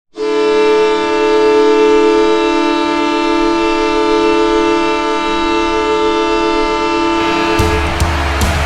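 Hockey arena goal horn: one long, steady air-horn blast sounding a chord of several tones together. Near the end the goal song's drums and bass come in as the horn stops.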